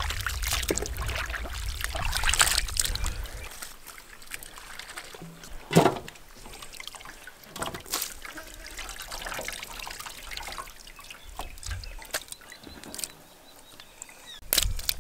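Raw fish pieces being squeezed and rubbed by hand in a steel bowl: wet squelching and dribbling liquid, with a few sharp splats and clinks along the way.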